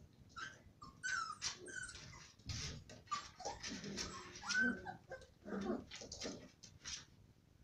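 Six-week-old Kooikerhondje puppies play-fighting, making a rapid string of short high yips and whimpers mixed with lower growling noises, along with scuffling clicks.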